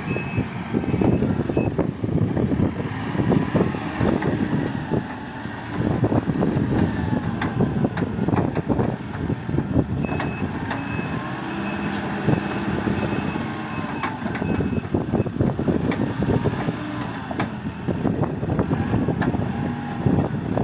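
Heavy construction machinery running, a loud rumbling diesel din with clanks and knocks, while a reversing alarm beeps about once a second for a stretch early on and again through the second half.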